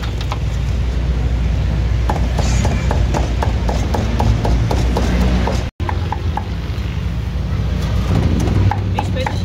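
Cleaver chopping grilled pork for sisig on a thick wooden chopping block: quick repeated chops, about four a second, over a steady low background hum.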